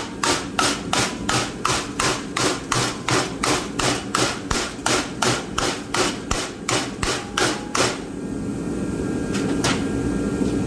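Hammer blows on a TIG-welded aluminium plate clamped in a vise, a fast, even series of about three strikes a second that stops about eight seconds in, with one last strike near the end. It is a bend test of the weld, which tears but does not break.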